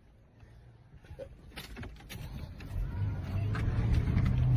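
Car engine running, growing steadily louder over the last few seconds.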